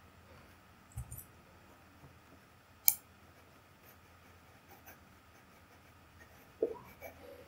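Quiet room tone broken by a single sharp computer-mouse click about three seconds in, with a faint low knock about a second in and a few soft small clicks near the end.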